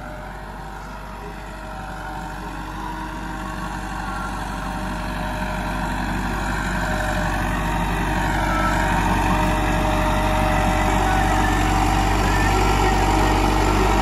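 Massey Ferguson 385 tractor's four-cylinder diesel engine running steadily under load while pulling a cultivator, growing steadily louder as it comes nearer; the engine note dips and recovers briefly a little past halfway.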